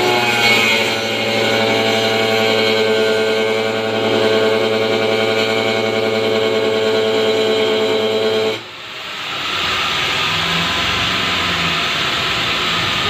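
Handheld angle grinder with a cutting disc running with a steady whine as it cuts through the top of a blue plastic barrel. The whine breaks off abruptly about eight and a half seconds in and gives way to a rougher, noisier grinding sound.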